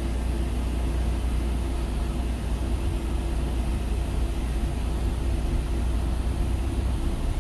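Engine and road noise inside a moving passenger van's cabin: a steady low rumble.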